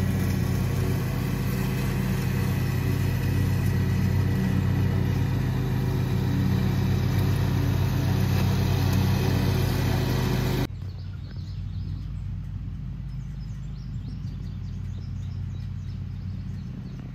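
Riding lawn mower engine running steadily at one speed. About ten seconds in the engine sound breaks off abruptly, leaving only a much quieter low rumble.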